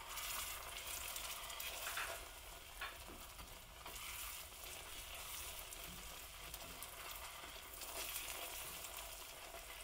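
Vegan butter melting into hot caramelized sugar in a pot, with a steady hiss as a spatula stirs it.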